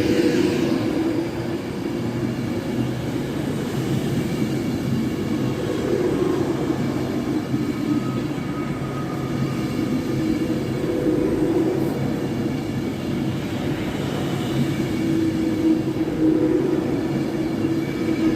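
A train running steadily, with a continuous mechanical hum and a few held tones and no sharp knocks.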